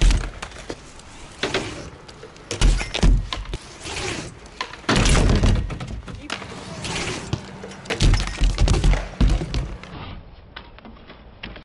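BMX bike and rider landing and crashing on a skatepark ramp: several heavy thuds, with the clatter of the bike hitting the ramp and tyres scraping between them.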